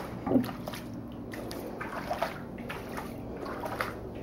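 Bare feet splashing through shallow floodwater on a tiled floor: a few irregular wet steps and splashes. A brief voice sound comes near the start.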